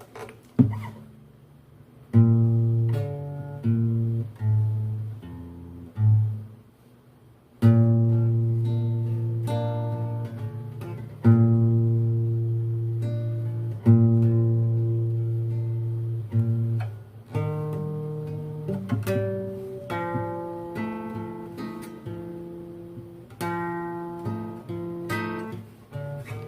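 Acoustic guitar music: chords strummed and left to ring out, a few seconds apart at first, then coming more often in the second half.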